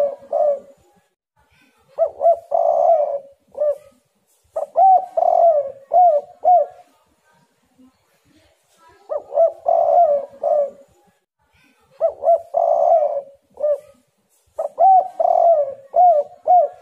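Spotted dove cooing in repeated phrases of several coos each, with short gaps between phrases and a longer pause about halfway through.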